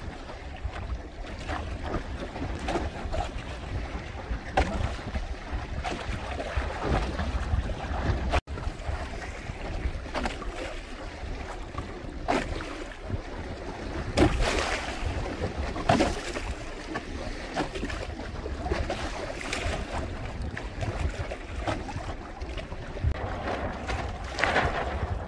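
Wind buffeting the microphone and water splashing and slapping against the hull and outrigger floats of a Hobie Tandem Island sailing kayak moving through choppy sea. A few louder splashes come in the second half.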